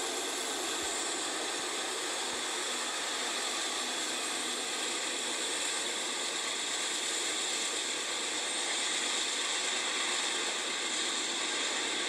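CSX freight train with several diesel locomotives rolling past, a steady clatter and hiss of engines and wheels on rail, played back thinly through a laptop speaker with little bass.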